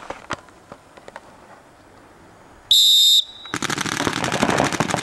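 A few scattered sharp pops, then a loud, high electronic start buzzer sounds for about half a second past the middle. Right after it, several paintball markers open up in rapid fire as the point begins.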